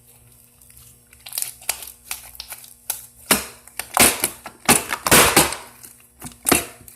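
Slime being squeezed and worked by hand, giving a run of crackling clicks and wet pops that start about a second in and are loudest in the middle and again near the end.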